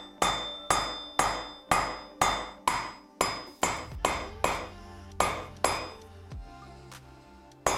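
Hammer blows on a steel bearing driver, tapping a new rear-wheel bearing into the sprocket-side hub: about a dozen sharp strikes at roughly two a second, each with a short metallic ring, easing off after about six seconds, with another blow near the end. The bearing is not yet fully seated.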